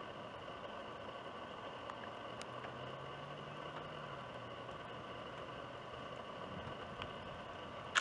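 Quiet outdoor background: a steady hiss with faint high steady tones. A faint low hum swells and fades in the middle, and a sharp double click comes at the very end.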